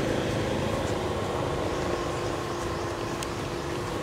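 Steady low background rumble with a faint hum, slowly fading.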